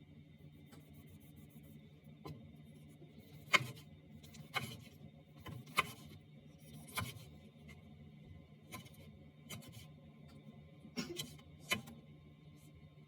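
A series of about nine sharp knocks and clicks, irregular and roughly a second apart, over a steady low hum.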